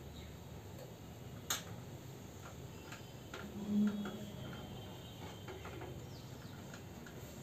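Scattered small clicks and taps of hands handling screws and metal parts in a desktop PC cabinet's drive bay while an SSD is being mounted, with a sharp click about a second and a half in. A brief low hum a little before the four-second mark is the loudest sound.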